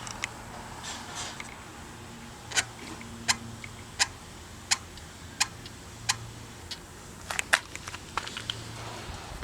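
Abnormal clicking from a Shimano Ultegra BR-6800 rim brake caliper: sharp, regular clicks about every 0.7 s, coming in a quicker, irregular cluster near the end.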